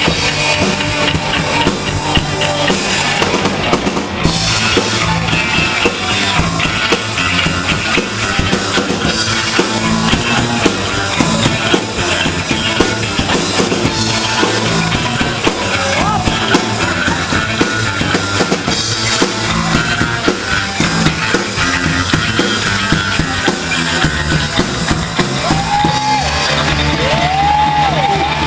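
Live rock band playing loudly and without a break: a drum kit and electric guitar, with a few bent notes near the end.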